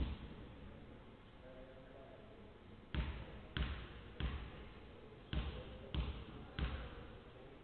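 A basketball bounced on a hardwood court by a player at the free-throw line in his pre-shot routine. One bounce comes at the start, then three quick bounces, a short pause, and three more.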